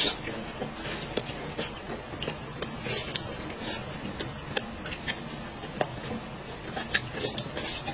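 Close-up eating sounds of a person chewing chicken and rice, with scattered soft smacks and clicks throughout.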